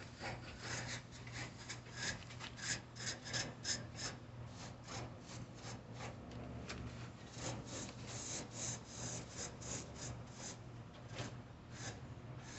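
Small brush scrubbing the cooling fins of a central air conditioner unit, brushing off dust and debris in rapid repeated scratchy strokes, about three or four a second.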